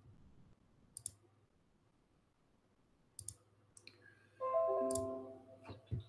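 Several sharp computer mouse clicks, then about four and a half seconds in a short video-call app chime of several notes stepping down in pitch, the loudest sound here. A low hum runs underneath.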